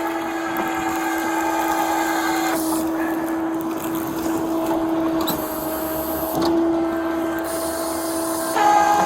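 Tow truck's hydraulic winch system running with a steady whine, its pitch shifting slightly a couple of times as the line takes up load.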